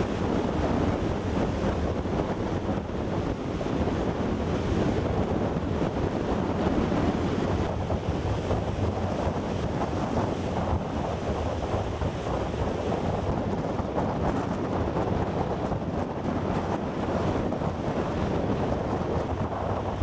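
Heavy storm surf breaking and crashing continuously on a rocky shore, a steady roar of churning water. Strong wind is buffeting the microphone.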